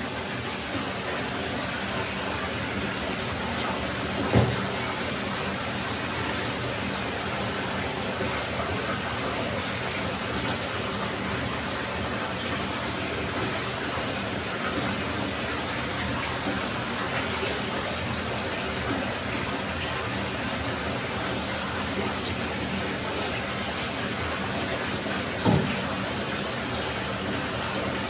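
Steady rush of running water in a bathtub during a dog's bath, with two brief knocks, one about four seconds in and one near the end.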